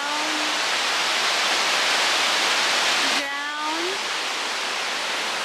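Steady rush of falling water from Kakabeka Falls, a large waterfall. It eases somewhat about three seconds in.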